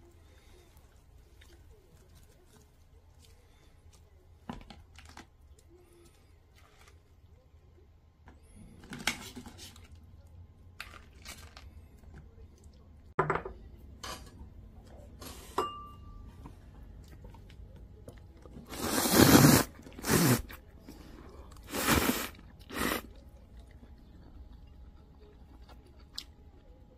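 Tableware clinking and knocking as crab ramen is served from a stainless steel pot into bowls with a ladle and chopsticks. The clinks are sparse and faint, with a few louder, longer sounds about two-thirds of the way through.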